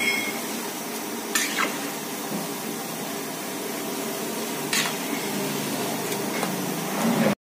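Cabbage manchurian balls deep-frying in a large kadai of oil, a steady sizzle, with a few sharp clicks as a slotted ladle stirs them against the pan: two close together about a second and a half in, one near five seconds. The sound cuts off suddenly near the end.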